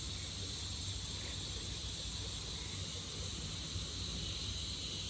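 Steady, continuous high-pitched chorus of insects from tropical forest at dusk, over a low rumble.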